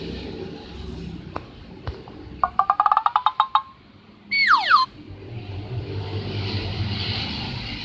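A cartoon-style sound effect played back from a phone: a quick run of short pitched beeps, about ten a second and rising slightly, then a single whistle-like tone gliding steeply down.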